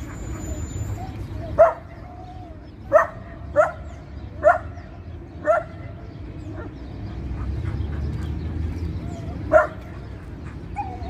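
A dog barking: six short barks, five close together in the first half and one more after a pause of several seconds.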